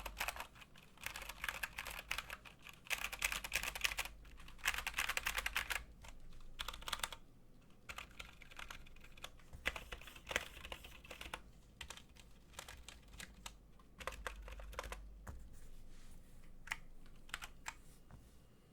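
Typing on an Anne Pro 2 mechanical keyboard with tactile Gateron Brown switches: fast, dense runs of keystrokes for the first several seconds, then looser typing that thins to a few single key presses near the end.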